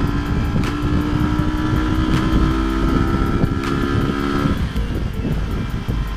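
Wind rumbling on the microphone of a camera riding on a moving motorcycle, over the motorcycle's engine running at a steady pitch. The engine tone drops away about four and a half seconds in.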